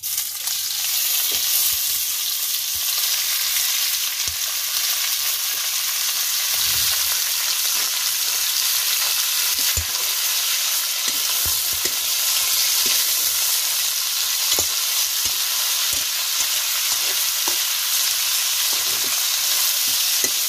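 Cut cuttlefish pieces sizzling in hot oil with sautéed garlic, onion and ginger in a steel wok. The sizzle starts suddenly as the pieces go in and then holds steady. Scattered clicks of a metal spatula scrape and knock against the wok as they are stirred.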